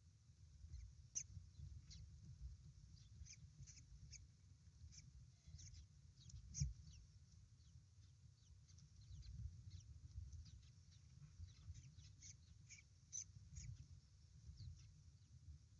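Faint scratching and rustling of wood shavings as a common kestrel shifts about on the nest-box floor: a scatter of small dry ticks, one sharper than the rest about six and a half seconds in, over a low rumble.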